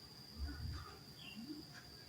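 Faint outdoor ambience: a steady high-pitched whine, with scattered short bird-like chirps and a brief low rumble about half a second in.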